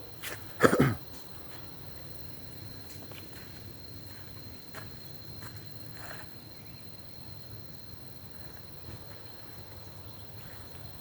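Insects in the jungle holding one steady, high-pitched drone over a low, even background hiss. There is a brief loud noise just under a second in, and a few faint ticks after it.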